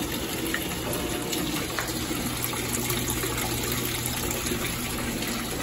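Water spraying from the inlet into the drum of a top-loading washing machine as it fills, a steady rush of water.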